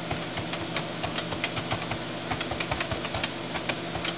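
Typing on a computer keyboard: quick, uneven keystroke clicks, several a second, over a steady low hum.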